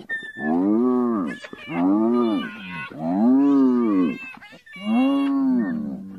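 Cartoon hyenas' vocal effects: four long moaning calls, each about a second, rising and then falling in pitch, with short high squeaks in between.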